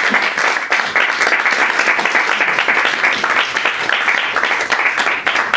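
A small audience applauding, a steady dense patter of many hands clapping.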